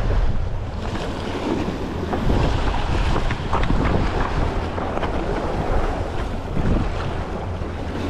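Wind buffeting the microphone, over waves washing and splashing against the rocks of a jetty.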